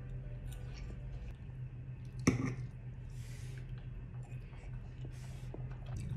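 Metal fork clinking and scraping against a ceramic plate while eating, with one sharp clink about two seconds in and two brief scrapes after it, over a low steady hum.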